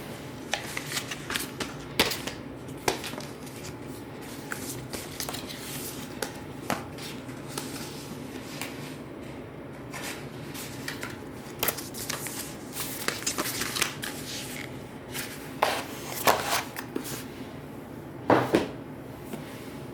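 Packaging being handled by hand during an unboxing: paper and cardboard rustling, with scattered clicks and taps, over a steady low hum.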